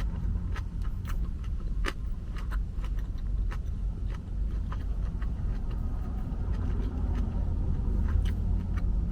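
Close-up eating sounds: scattered short clicks and smacks of food being picked up and chewed, over a steady low rumble.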